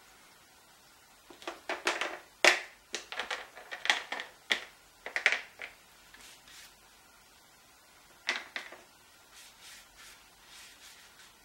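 Wide flat paintbrush scrubbing and swishing across wet watercolour paper in quick short strokes: a dense flurry in the first half, then a few more strokes near the end.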